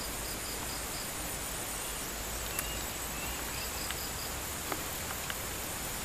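Steady high-pitched chorus of insects trilling at dusk. A faster pulsing note joins it twice, near the start and around the middle, and there are a few faint short chirps.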